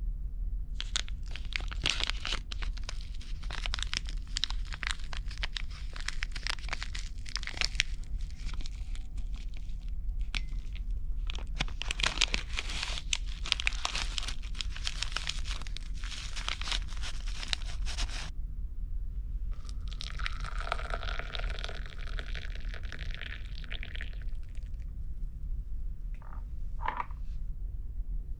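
Crinkling and tearing of a foil tea bag packet being handled and ripped open, crackling in dense stretches for most of the first eighteen seconds. About twenty seconds in comes a few seconds of steadier hiss, all over a steady low hum.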